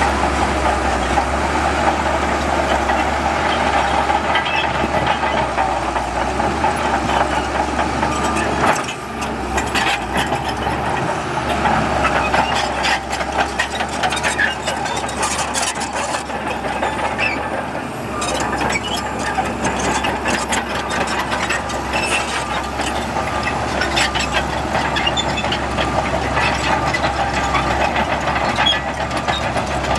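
Heavy earthmoving machinery's diesel engine running steadily. About nine seconds in the level drops briefly, and from then on many sharp clanks and rattles sound over the engine.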